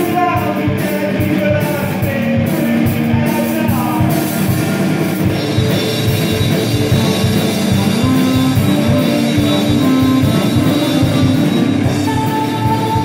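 Live band playing an instrumental passage: a drum kit keeping a steady beat under electric guitar, keyboard and saxophone, the saxophone playing long held notes.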